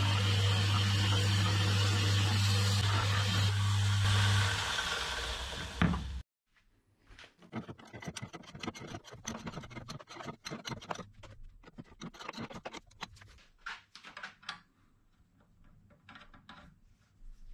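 Homemade electric belt grinder running with a steady mains hum while its belt grinds the steel tube of an old car shock absorber; the motor stops about four and a half seconds in and winds down. Then quieter clicks and scrapes of the shock absorber's metal parts being handled and taken apart.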